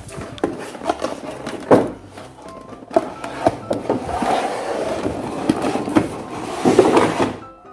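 Doll packaging handled by hand: scattered clicks and knocks, then about three seconds of rustling and scraping, over soft background music.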